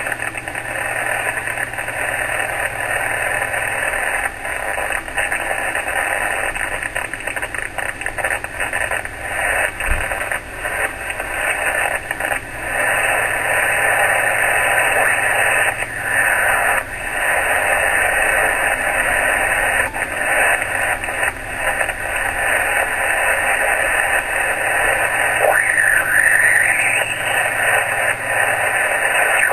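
Speaker of a Yaesu HF transceiver on LSB putting out loud, steady hiss and crackle across the 80 m and 40 m bands, with the S-meter at S9 and above. This is radio interference that drowns out all signals and makes HF operation impossible. Near the end a brief whistle slides up and back down in pitch.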